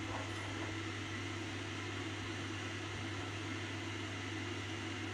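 Steady hiss with a low hum from a pot of water heating on a high gas flame, just short of the boil.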